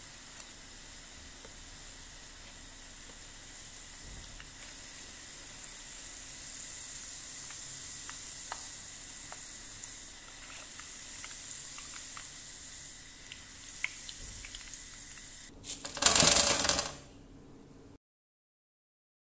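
Churros dough rings deep-frying in hot oil: a steady sizzle with scattered small pops. Near the end comes a loud burst of noise about a second long, then the sound cuts out.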